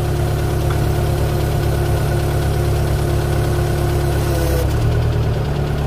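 Waldon 6000 articulating loader's engine running at idle, warmed up, with a steady low note. About three-quarters of the way through a faint higher tone slowly drops and stops and the engine note shifts.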